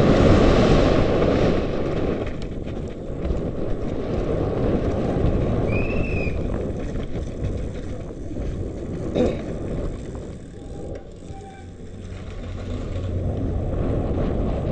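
Downhill mountain bike descending fast on a dirt track, heard from a helmet camera: a steady rush of wind noise and tyres on loose dirt, loudest at the start, with the bike rattling and a sharp knock about nine seconds in.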